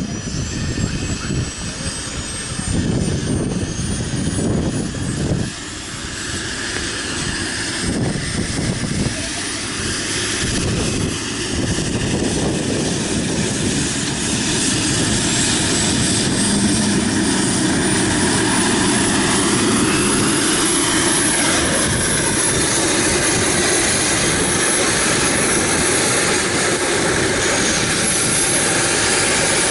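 Helicopter running up on the ground: the turbine whine rises steadily in pitch over about twenty seconds, then holds as the engine and rotor settle into a loud, steady run.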